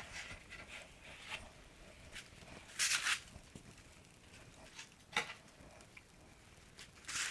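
Packaging being handled while a small box is unwrapped: brief soft rustles and crinkles, the loudest about three seconds in, and a small click about five seconds in.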